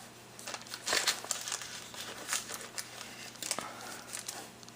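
Wrapping crinkling and rustling in irregular handfuls, with small clicks and taps, as gift items are handled and unwrapped.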